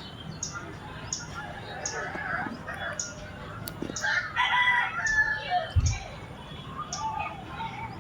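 A rooster crows once in the middle, the loudest sound here. Behind it, short high chirps repeat steadily, a little under twice a second.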